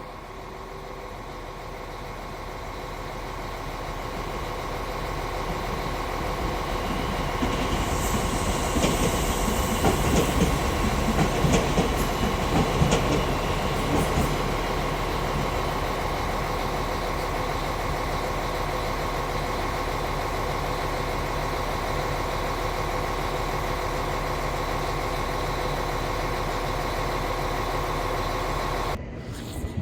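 Train coming into the station, growing louder over the first several seconds, with wheels clattering over the rails in the middle. It then settles into a steady hum with a couple of held tones, and the sound cuts off abruptly near the end.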